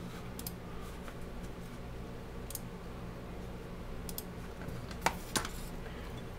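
Light clicks and taps of a desoldering iron and fingers working the wiring inside a sheet-metal case, with two sharper clicks about five seconds in, over a steady low hum.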